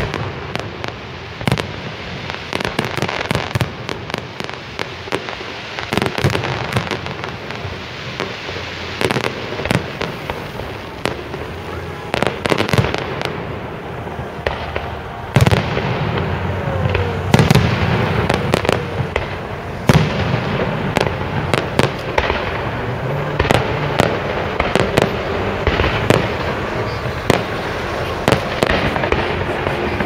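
Fireworks display: aerial shells bursting in quick succession, dozens of sharp bangs over a continuous crackle. The bangs come thicker and louder from about halfway through.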